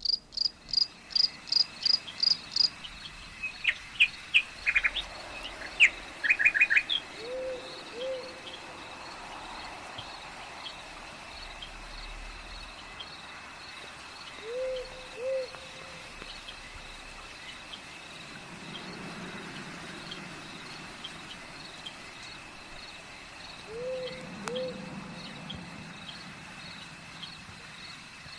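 Night-time nature ambience sound effect: a steady, high cricket trill throughout, with rapid bird chirps in the first few seconds and then more chirping. An owl gives paired hoots three times, about seven, fifteen and twenty-four seconds in.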